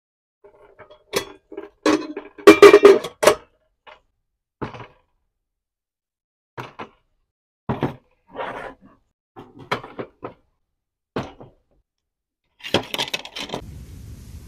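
A series of separate clinks and knocks, with some brief ringing. The loudest is a dense cluster about two and a half to three and a half seconds in.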